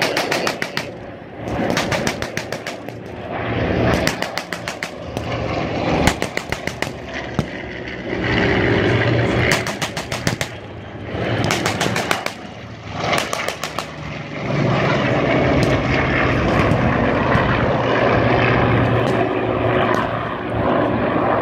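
Propeller-driven warplanes running low overhead. Their engine drone is broken over the first dozen seconds by repeated rapid strings of sharp pops, then swells into a louder, steady drone as a plane passes close.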